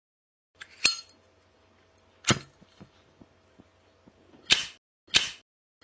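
Zippo lighter's metal lid clicking open with a brief ringing ping, followed by sharp metal clacks, one about a second and a half later, then two more about two-thirds of a second apart near the end.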